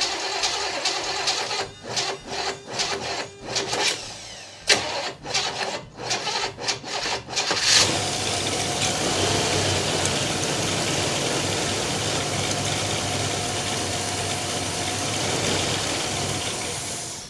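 1965 Chevrolet El Camino engine cranking with uneven, stuttering pulses for several seconds, then catching about eight seconds in and running steadily until it cuts off. It starts on its own fuel supply from the restored tank and lines, no longer bottle-fed.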